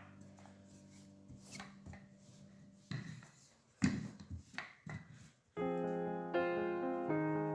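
A wooden rolling pin rolling and knocking on a work surface as bread dough is rolled out: a few sharp knocks, loudest about four seconds in, over faint background music. About five and a half seconds in, piano music starts and carries on, louder than the rolling.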